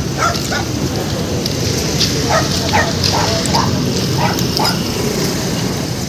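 A dog barking in runs of short barks, about two a second, over a steady rush of roadside noise.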